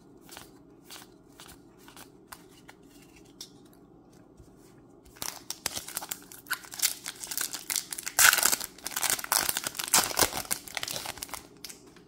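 Light, scattered clicks of trading cards being handled. Then, about five seconds in, the loud crinkling of a Magic: The Gathering play booster's foil wrapper being handled, lasting several seconds before it stops near the end.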